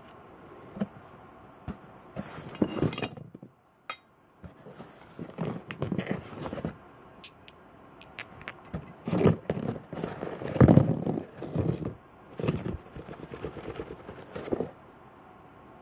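Used car engine parts being handled and set down: irregular metallic clinks and knocks, with rustling, as a distributor and small metal parts are lifted from a cardboard box onto a towel.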